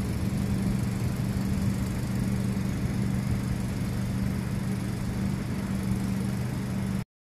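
Engine running steadily, a low hum that holds one pitch and cuts off suddenly near the end.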